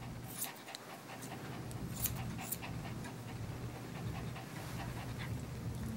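A Maltipoo panting, with a few short snips of grooming shears cutting its ear hair.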